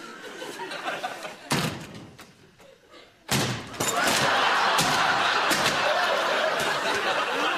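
A wooden door slams shut, then about two seconds later a loud crash as the door is smashed through. Sustained studio-audience laughter follows.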